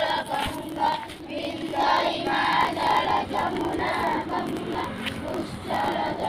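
A crowd of schoolchildren chanting loudly together in unison, in short rhythmic syllables.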